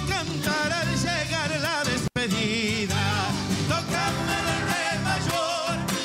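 A live band plays a folk song from Salta: a male lead voice singing with vibrato over guitar, electric bass, violin and drums, with a second voice singing backing. There is a split-second dropout in the sound about two seconds in.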